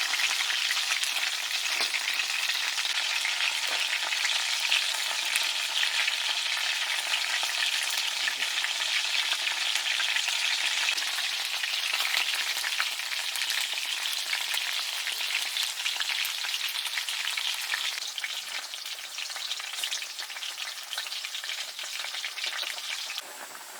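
Food frying in hot oil in a pan: a steady, dense sizzle and crackle that eases a little in the last few seconds and drops away sharply near the end.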